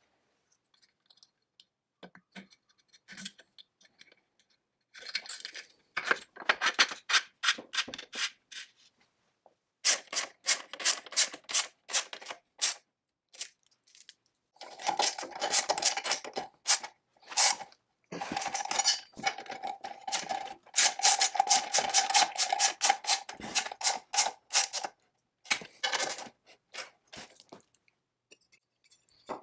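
Bursts of rapid, sharp metallic clicking and clinking from hand tools working on the metal parts of a McCulloch 99 chainsaw powerhead during reassembly, starting a few seconds in and stopping briefly twice. In the second half a steady metallic ringing tone sounds under the clicking.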